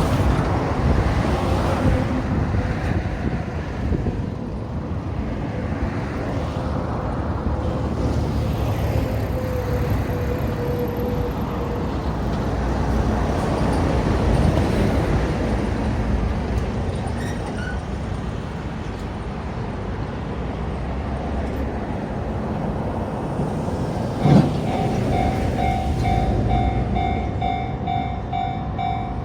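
A steady low rumble, then about 24 seconds in a click and a Japanese level-crossing warning bell starting up, a rapidly repeating electronic ding that continues.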